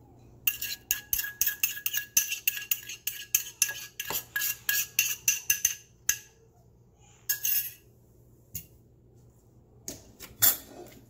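A metal spoon scraping and tapping the muddled jalapeño out of a stainless steel muddling cup, making a fast run of ringing metallic clinks, about five a second, for about five seconds. It is followed by a couple of single clinks of metal and glass.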